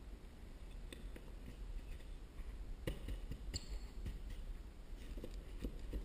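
Light scattered taps, knocks and scrapes as a piece is handled and fitted into a slot cut in a drywall ceiling. The loudest pair of knocks comes about halfway through, over a low steady rumble.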